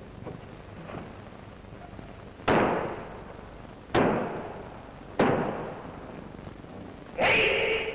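A karateka performing the kata Jion: three sharp cracks about a second and a half apart, each ringing briefly in the hall, then a short loud kiai shout near the end.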